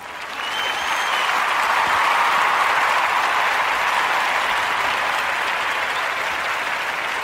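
Crowd applauding steadily, swelling in over the first second, with a brief whistle near the start.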